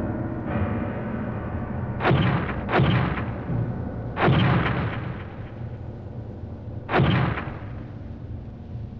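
Dubbed fight sound effects for a costumed-hero tokusatsu battle: four sudden heavy booming hits about 2, 3, 4½ and 7 seconds in, each dying away quickly, over a steady low hum.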